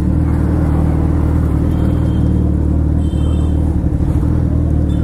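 Motor vehicle engine running at a steady speed, a low even hum with rumble.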